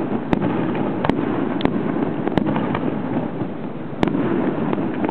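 Aerial fireworks display: a dense, continuous rumble of bursts with sharp bangs about once a second, the loudest about four seconds in.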